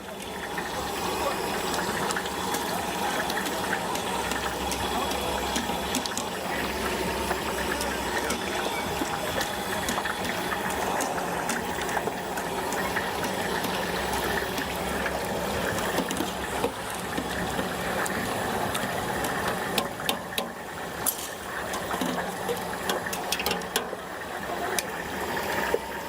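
Hot oil sizzling steadily in a deep fryer as stinky tofu fries, with a few sharp clicks of utensils near the end.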